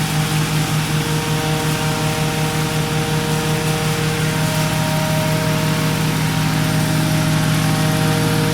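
Garden branch wood chipper's engine running steadily. Its low hum pulses evenly at first and smooths out about halfway through, growing slightly louder.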